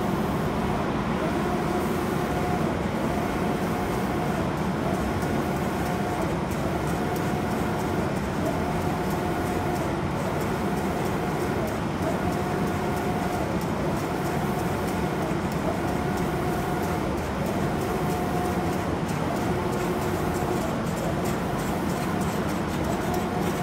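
Automatic spray-painting machine running: a steady hum of fans and air. Over it, a motor whine starts and stops about every one and a half seconds as the spray-gun carriage travels back and forth.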